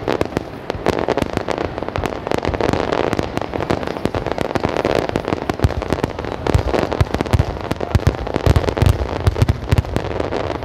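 Fireworks bursting in rapid succession: a dense, continuous run of bangs and crackles, with heavier deep booms coming thick and fast in the second half.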